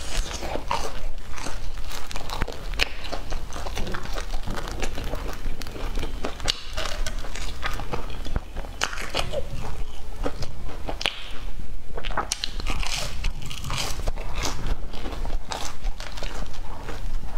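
Close-up biting and chewing of a crusty golden-brown bun: irregular crunching and crackling of the crust as it breaks between the teeth, going on throughout.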